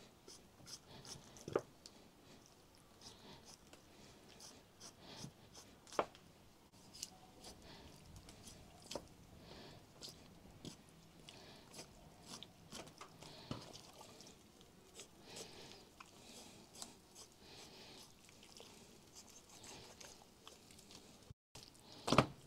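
A knife cutting raw meat off a skinned carcass on a wooden cutting board: quiet wet slicing and tearing with small crackles, and now and then a knock of knife or meat on the board, the loudest just before the end.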